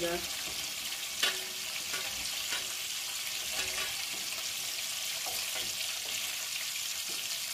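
Shallow vegetable oil sizzling in a large metal pot as fried shrimp are lifted out with a wooden spatula, with a few sharp knocks and scrapes of the spatula against the pot.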